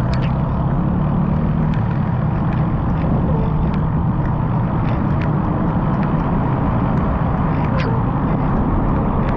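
Steady, loud low rumble of riding noise: wind on the microphone and road noise, with scattered faint ticks.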